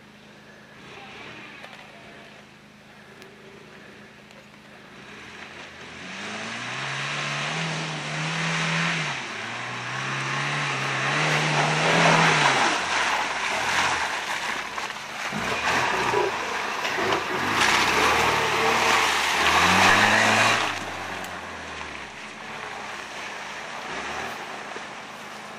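Toyota pickup truck's engine revving hard in repeated surges as the truck ploughs through deep mud, with its tyres spinning and mud spraying. The engine comes in a few seconds in, rises and falls several times, is loudest with the mud spray in the middle, and falls away near the end.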